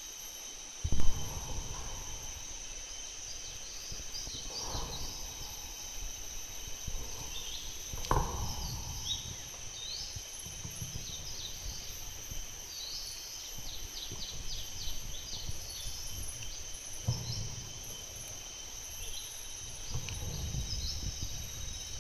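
Outdoor ambience: a steady high insect drone with birds chirping over it, broken by a few low thumps and rumbles, the loudest about a second in.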